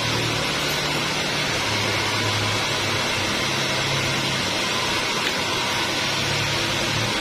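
Steady rushing noise with a low hum that swells and fades every second or two.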